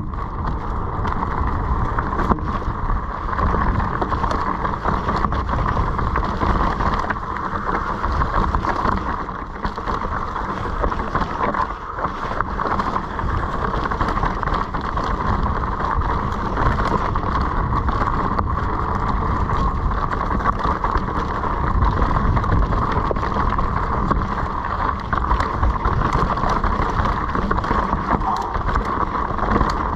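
Bike descending a rocky trail, heard from a camera riding along: continuous wind and rumble with constant rattling and knocks as the wheels go over rocks.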